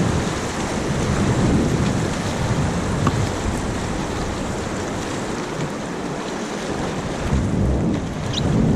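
Rushing whitewater around a paddled raft on river rapids, a steady roar of water with wind buffeting the microphone and low swells now and then.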